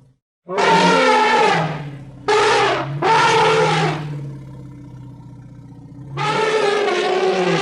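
Designed creature calls for a fictional giant mammoth: three loud, rough, pitched calls in quick succession, a lower sustained rumble, then a longer loud call starting about six seconds in.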